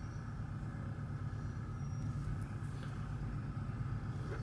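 Steady low background hum, with no distinct tool sounds.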